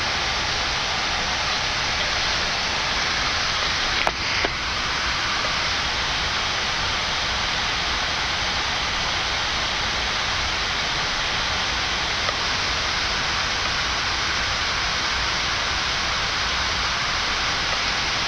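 Steady rushing hiss of a Boeing 787-9 flight deck at the gate with the engines not yet started: cabin air-conditioning and equipment fans. Two brief clicks about four seconds in.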